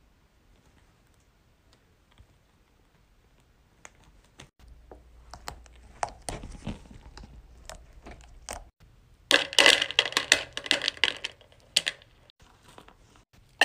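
Hardened wax beads being popped out of a silicone mold, giving scattered small clicks, then a dense clatter of hard wax beads dropping into a plastic container for about two seconds, the loudest part.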